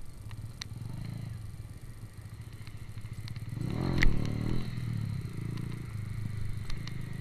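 Small-displacement motorcycle engine running steadily while riding in traffic, with a swell in engine sound and a single sharp knock about four seconds in.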